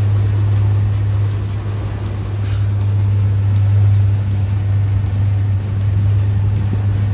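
A boat's motor running with a steady low drone, over the rush of wind and water as the boat moves across choppy sea.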